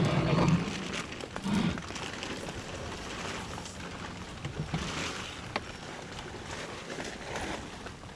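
Steady hiss of rain falling, with a few light knocks and rustles close by.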